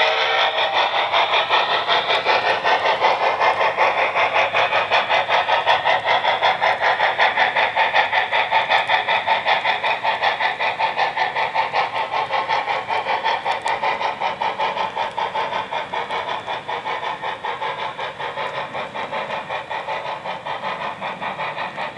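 Model PRR T1 steam locomotive's sound system chuffing in a rapid, even beat and slowly fading as the train pulls away, with the tail of a steam whistle blast cutting off about half a second in.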